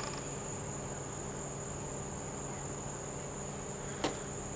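Crickets singing in a steady, even high trill, over a faint low hum. A single sharp click about four seconds in.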